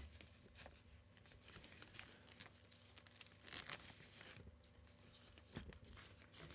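Faint rustling of softbox diffuser fabric being handled, with scattered soft ticks and short rips of its Velcro tabs.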